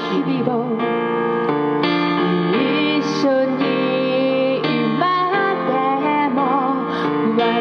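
A woman singing into a microphone over an electronic keyboard playing piano-sound chord accompaniment, her sung notes wavering with vibrato on the held tones.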